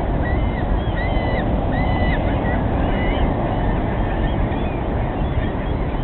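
A flock of gulls calling, many short overlapping cries, most of them in the first half, over a steady rushing background noise.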